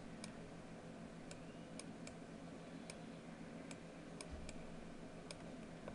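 Faint computer mouse button clicks, about ten, scattered irregularly, as strokes are drawn with the mouse in a paint tool. A low steady electrical hum runs underneath.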